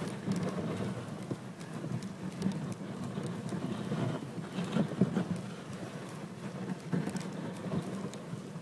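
Reindeer hooves crunching and clopping irregularly on packed snow as it walks, pulling a sleigh, over the sleigh's gritty hiss on the snow.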